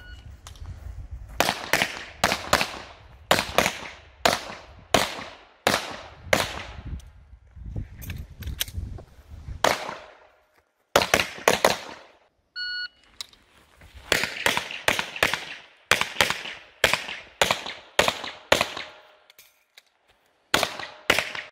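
Handgun shots fired mostly in quick pairs, about a pair a second, each crack trailing off in a short echo. A short electronic beep sounds about halfway through, and for the first half a low wind rumble runs under the shots.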